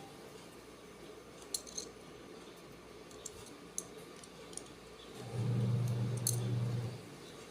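A few light clicks of small plastic switch parts being handled and fitted together during reassembly. A low steady hum starts about five seconds in, lasts about a second and a half, and is the loudest sound.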